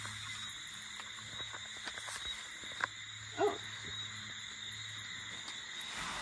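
Quiet evening outdoor ambience: a steady high-pitched drone of insects, light rustling with small clicks, and one short call about three and a half seconds in.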